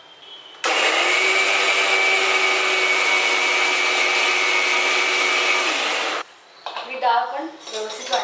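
Electric mixer grinder running at full speed for about five seconds, grinding soaked urad dal, then switched off abruptly.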